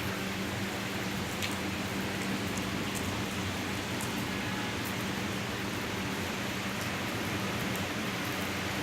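Steady rain falling, with scattered faint drop ticks, over a low steady hum.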